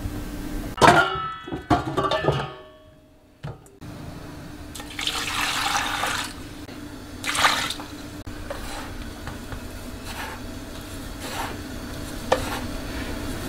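Metal clanks of a stainless bowl and stockpot, then milky water poured from a bowl over boiled pork backbones in a stainless stockpot, splashing in two pours, followed by a few light taps.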